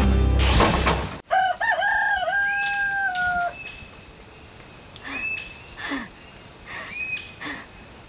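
Music cuts off about a second in, then a rooster crows once: a warbling start and a long, slightly falling held note. A steady high-pitched drone follows, with a few short bird chirps.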